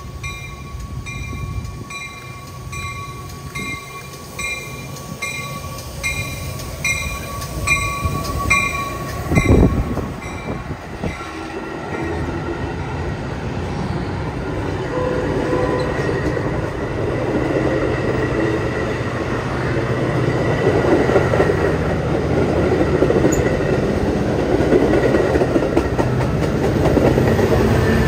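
A Metra commuter train passing close by. A bell rings steadily, about one and a half strokes a second, for the first ten seconds or so. Then the bilevel coaches rumble and clatter over the rails, building in loudness until the diesel locomotive at the rear passes near the end.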